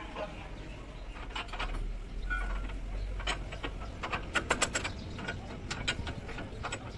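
Long-handled socket wrench working a bolt on a heavy truck's rear brake and hub assembly: irregular metallic clicks and clinks, with a quick run of clicks about four and a half seconds in.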